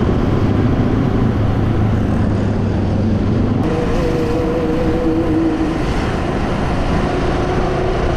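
Motorcycle engine running steadily as the bike rides along at road speed, under a constant rush of wind over the microphone. A little past three seconds in, the engine note rises and changes.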